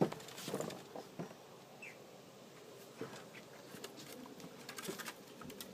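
Faint, irregular light pattering and clicking of a miniature schnauzer puppy's paws as it walks.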